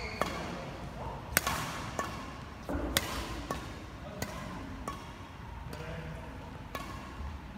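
Badminton rackets striking a shuttlecock in a rally, a string of sharp hits about one a second, each echoing briefly in a large hall.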